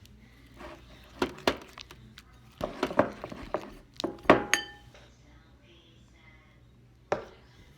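Hard clinks and taps of a utensil or container against a mixing bowl while slime ingredients and laundry detergent are added and mixed, in uneven clusters, one clink ringing briefly about four and a half seconds in, and a single knock near the end.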